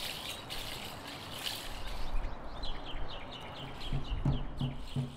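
A steady rushing outdoor background with a quick run of high chirps, then a low drum beat of about three thumps a second comes in about four seconds in, starting the intro music.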